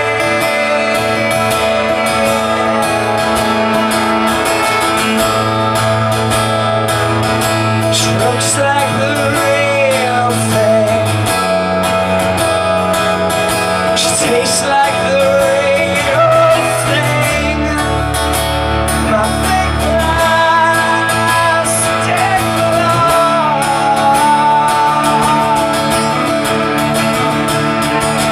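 Live acoustic music: a strummed acoustic guitar with a bowed cello holding long low notes that change every few seconds.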